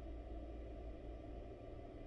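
Faint steady low rumble with no calls, hisses or knocks standing out: background noise in the nest box.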